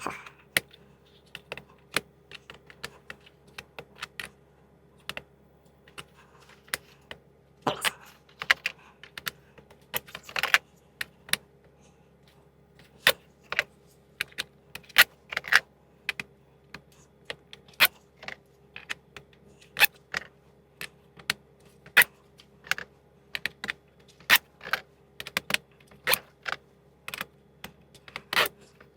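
Metal sockets being handled and twisted onto plastic socket-rail clips: irregular sharp clicks and clinks, about one or two a second, with a run of louder ones around eight to ten seconds in.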